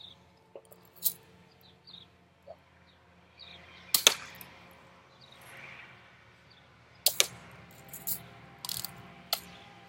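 BB guns being cocked and fired: several sharp snapping clicks a few seconds apart, some in quick pairs.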